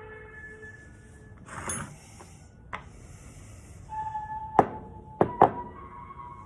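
Background music, over which a short scraping clatter, a click and then three sharp knocks sound as parts of a pressure washer's rotating nozzle are handled during disassembly. The last knocks, in the second half, are the loudest.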